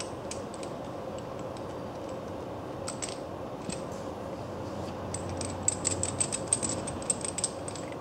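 FD Grip steel rebar coupler being unscrewed by hand: light metallic clicks and ticks of the threaded steel parts, scattered at first, then a quick run of sharp clicks from about five seconds in as the sleeves and threaded stud come apart. A steady low hum runs underneath.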